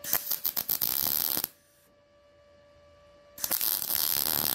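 MIG welder laying two tack welds, each a crackling, sputtering arc lasting about a second and a half, the first beginning with a few stuttering starts and the second coming about two seconds after the first ends.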